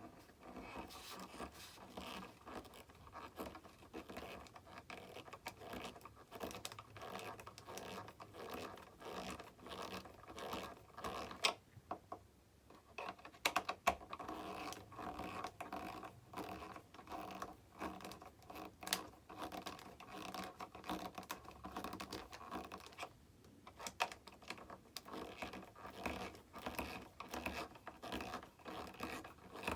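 Close, scratchy handling noise with small clicks as the plastic and foam elevator and hinge parts of an RC jet are worked by hand and adjusted, with a couple of brief pauses.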